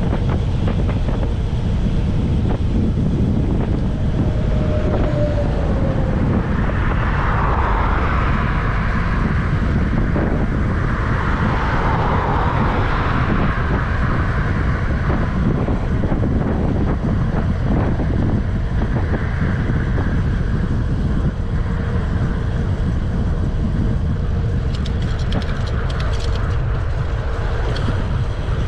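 Wind noise on a GoPro Hero 9's microphone while cycling: a steady low rush, with a couple of brief brighter swells in the first half.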